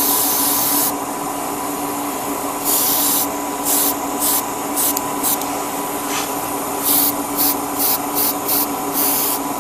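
Airbrush hissing in short bursts during light spray passes of paint: a longer burst at the start, then many brief ones. A spray booth's extraction fan hums steadily underneath.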